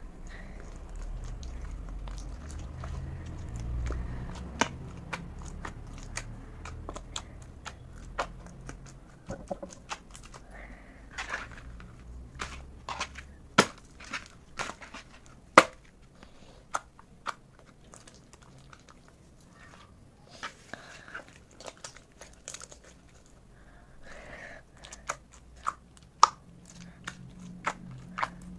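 Clear glitter slime studded with foam beads being squeezed and kneaded by hand: an uneven run of sticky pops and clicks with soft crackling, two pops much louder near the middle. A low rumble of handling sits under the first several seconds.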